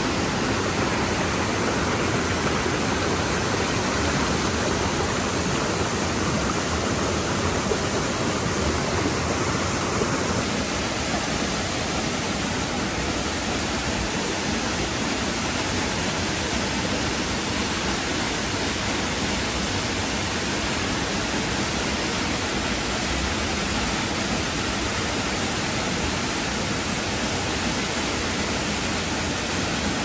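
Steady rushing of a waterfall and the shallow stream below it, water pouring into the pool and running over stones.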